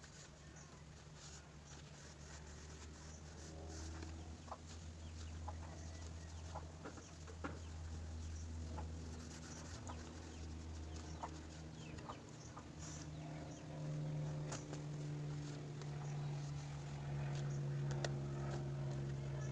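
Scattered light clicks and taps from handling a clip fan while it is wiped clean with a cloth, over a low steady hum that shifts to a higher pitch about two thirds of the way through.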